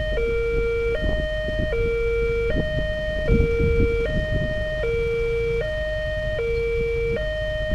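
Railway level-crossing warning alarm sounding its electronic two-tone chime, alternating a higher and a lower note about every three-quarters of a second. It signals that the barrier is closed for an approaching train.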